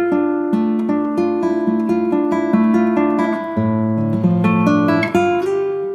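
Background music: an acoustic guitar picking out a melody of plucked notes.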